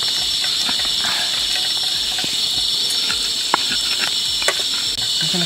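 Stone pestle (ulekan) grinding and knocking against a cobek mortar as sambal terasi ingredients are crushed, heard as irregular scrapes and small clicks. Under it runs a loud, steady high-pitched drone of forest insects.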